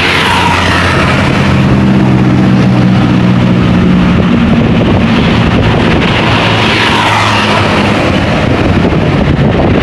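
A heavy road vehicle's engine running close by as traffic passes on the road, with steady road noise. The engine note holds steady, then shifts in pitch a few times.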